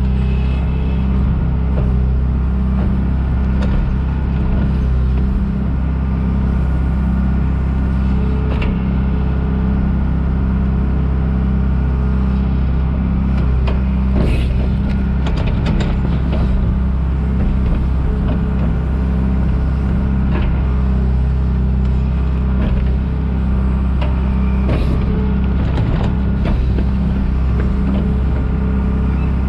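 Diesel engine of a John Deere 310G backhoe running steadily, with a few short knocks of the machine working around the middle and again near the end.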